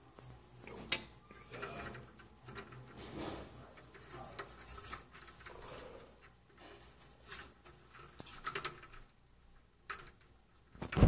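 Irregular light clicks and rattles from a window's horizontal blinds and fittings being handled.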